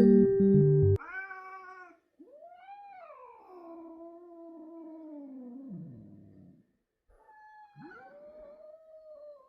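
Music cuts off about a second in, then a cat meows several times: a short call, a long drawn-out meow that falls in pitch, and another long meow near the end.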